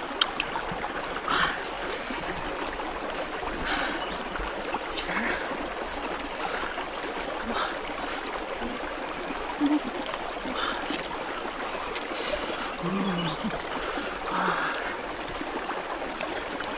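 Steady running water of a small stream trickling, with a few brief splashes and wet handling noises scattered through it.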